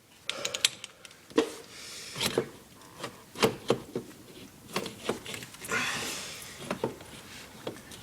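Metal bolts being wiggled and pushed through an ATV's sprocket hub, giving irregular clicks, light knocks and clinks of steel on steel, with a brief scraping rub about six seconds in.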